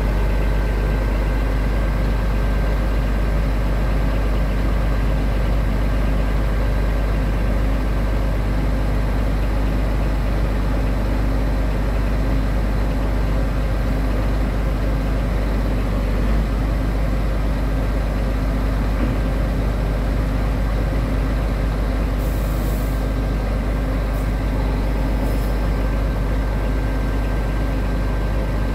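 2005 Scania R truck's diesel engine running steadily, driving the hydraulics as its truck-mounted knuckle-boom loader crane unfolds and raises its boom, with a thin steady whine over the engine. A few brief hisses come near the end.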